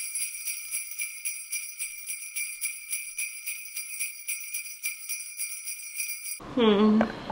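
Jingle bells shaken in an even rhythm, bright and thin with no low end. They cut off suddenly about six seconds in, and a voice starts just after.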